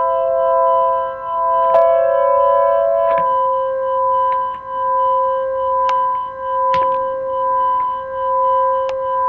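SoundSchool Analog, a free polyphonic Micromoog-style software synthesizer, holding sustained notes whose volume swells and dips slowly about once a second. Another note joins near two seconds in and stops about a second later, and a few short clicks sound.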